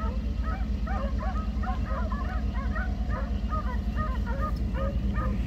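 A pack of hounds baying: many short calls overlapping several times a second, over the steady low rumble of the truck's engine.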